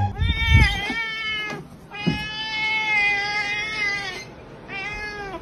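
Orange cat meowing: a run of short meows, then one long drawn-out meow of about two seconds, then another short meow near the end.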